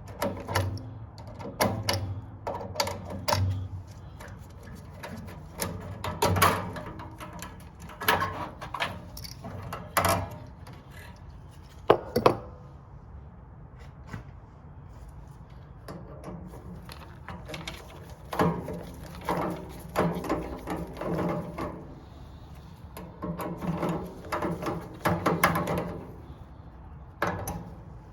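Irregular metal clanks, clicks and scraping of hand tools and parts while a gas water heater's burner and valve assembly are being taken apart.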